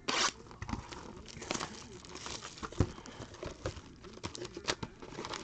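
Plastic wrapping and cardboard packaging crinkling and tearing as a sealed box of trading cards is opened, with a loud crackle right at the start and a run of small crackles and clicks after.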